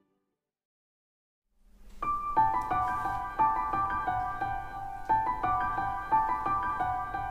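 Dead silence, then background keyboard music begins about two seconds in: a melody of repeating, ringing notes.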